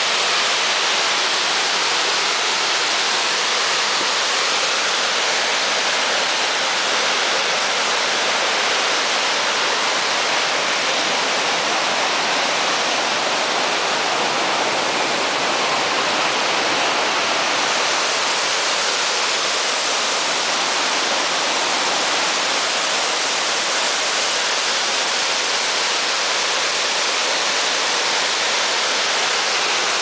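The Chagrin Falls waterfall on the Chagrin River: a loud, steady rush of falling water that does not change.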